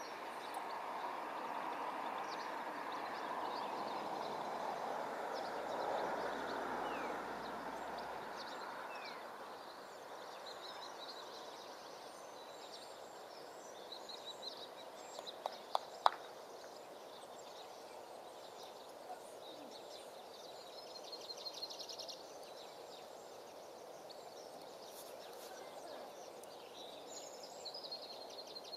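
Outdoor ambience: small birds chirping and trilling over a steady background hiss that is stronger for the first ten seconds or so, with a few sharp clicks about halfway through.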